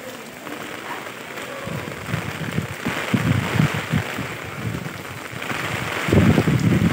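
Heavy rain falling, with low gusts buffeting the microphone from about two seconds in, loudest near the end.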